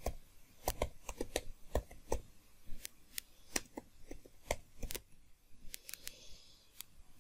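Typing on a computer keyboard: a quick, irregular run of key clicks that thins out after about five seconds.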